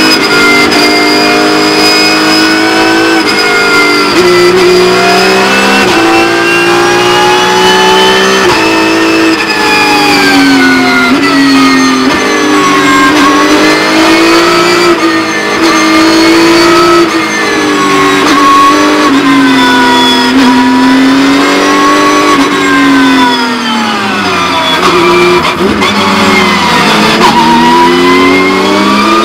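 Porsche 911 GT3 Cup race car's naturally aspirated flat-six heard from the cockpit under racing load, its pitch climbing through the revs and dropping back with each gear change. Near the end it falls to its lowest as the car slows, then climbs again under acceleration.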